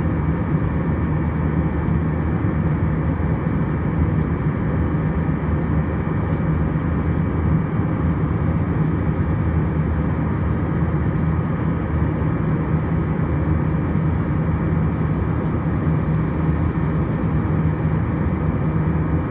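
Steady cabin noise of an Airbus A320-200 in flight, heard from a window seat over the wing: an even engine and airflow noise with a low hum, unchanging throughout.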